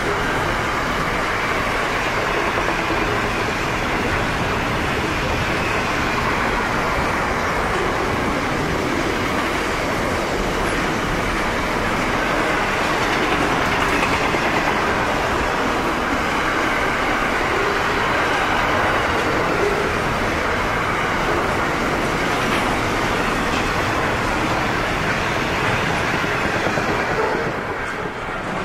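Long container freight train rolling past at speed: a steady rumble and rattle of wagon wheels on the rails, dropping away near the end as the last wagon passes.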